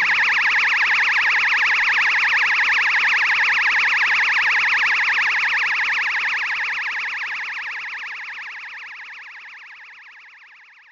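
Kamehameha energy-beam sound effect: a sustained, rapidly pulsing high blast that holds steady, then fades out slowly over the last five seconds or so.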